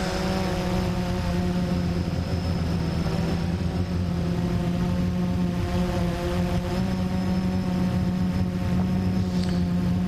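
Blade 350 QX3 quadcopter in flight, its electric motors and propellers giving a steady buzzing hum of several held tones, heard from its own onboard camera.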